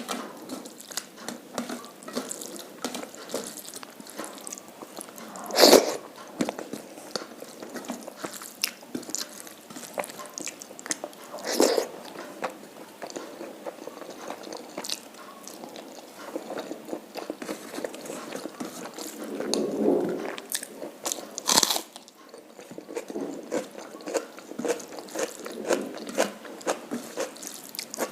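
Close-miked eating: steady wet chewing and small mouth clicks, with a few louder crunchy bites spread through.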